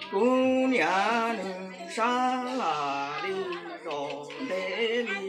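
A man chanting a Hmong wedding song (zaj tshoob) unaccompanied, in long held notes that slide up and down between pitches. This is the verse sung over the wedding umbrella before the wedding party sets off.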